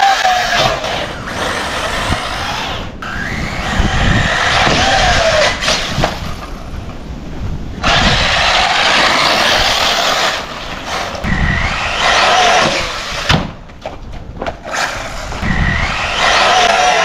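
Arrma Typhon 6S RC buggy's brushless motor whining up in pitch in repeated bursts of hard acceleration, with the rush of its tires over the dirt.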